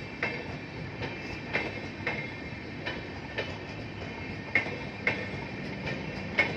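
Indian Railways passenger coaches rolling past close by: a steady rumble of running wheels with sharp clacks at uneven intervals, about one or two a second, as the wheels cross rail joints.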